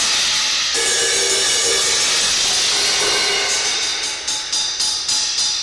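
Drum kit played hard with cymbals crashing, a dense ringing cymbal wash that sets in suddenly, the new Paiste PSTX 16-inch Swiss Thin Crash among them. From about three and a half seconds in, quick repeated cymbal strikes come at about four a second.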